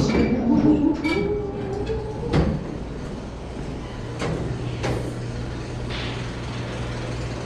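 Background hum of a large exhibit hall, a steady low drone that becomes plain about halfway through, with a few scattered knocks and footsteps as people walk through.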